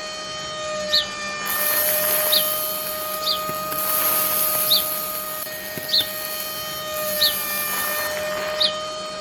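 Small electric motor running with a steady whine, and a short high chirp repeating about once a second. A hissing noise comes in about one and a half seconds in and fades near the end.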